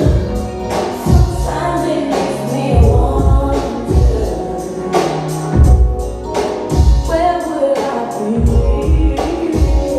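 Background music with singing and a heavy beat.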